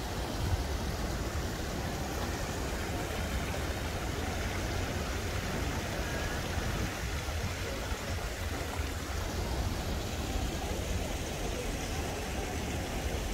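Steady wash of running water from a garden stream or small waterfall, over a constant low rumble.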